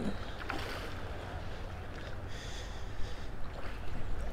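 Steady rush of a shallow river riffle running over rocks, with a low rumble underneath.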